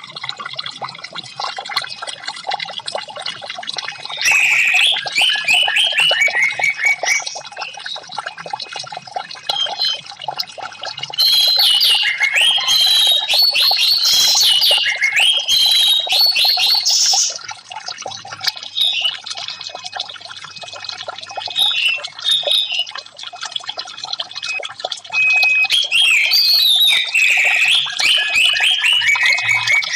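Orange-headed thrush singing in three loud bursts of quick, varied whistled notes, over steadily trickling water.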